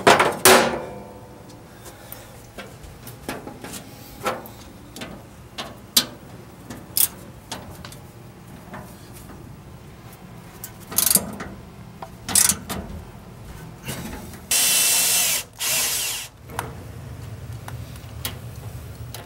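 Scattered clicks and knocks of hand tools and metal hardware, then about fourteen seconds in a cordless power drill runs for about a second and a half, and briefly again just after.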